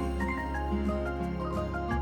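Background music: a light melody of short plucked or keyboard-like notes over a steady bass line.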